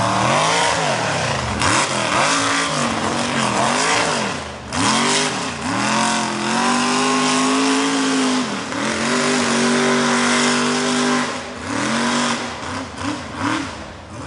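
Mega truck's engine revving hard: quick rises and falls in pitch at first, then held at high revs for a couple of seconds at a time, dropping away near the end.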